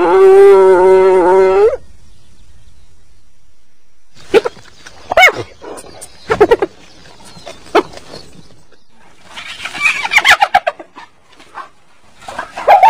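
Spotted hyena calls. A loud call holds one pitch for nearly two seconds at the start. Short yelps sweep up and down in pitch in the middle, a quick chattering run of calls comes about ten seconds in, and loud, higher calls begin near the end.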